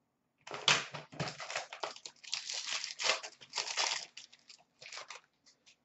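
Hockey card box being opened and its foil-wrapped pack torn open by hand: irregular crinkling and tearing of the wrapper in quick bursts, starting about half a second in and stopping shortly after five seconds.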